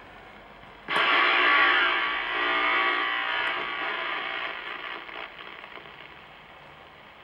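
Realistic Navaho TRC-431 CB radio's speaker breaking into a loud buzz about a second in, which then fades away over the next four seconds. The uploader traced this buzz to interference from a faulty scanner AC adapter, putting out 18.9 V instead of 12 V, plugged into the same power strip.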